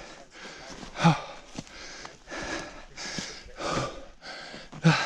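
A person breathing hard and out of breath, with loud breaths coming about once a second.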